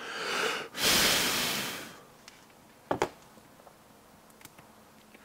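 A rushing hiss lasting about a second, then a sharp double knock about three seconds in as the plastic battery and receiver box is set down on the countertop, followed by a few faint ticks.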